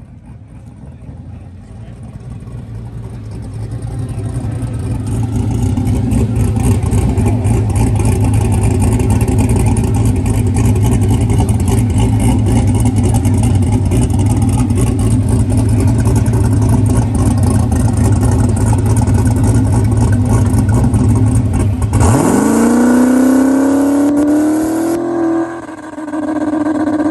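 Turbocharged 5.3 LS V8 drag car, a loud steady rumble that builds over the first few seconds. About 22 s in it launches: the engine note climbs steeply, drops briefly about three seconds later and climbs again. The owner says the engine was still breaking up on this pass, which he puts down to his old plug wires.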